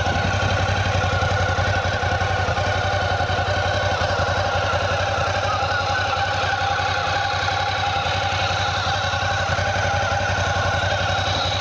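Ducati GT1000's air-cooled 90-degree V-twin idling steadily on its original exhaust, a bit tame, heard close to the engine, with the rattle of its dry clutch under the closed clutch cover.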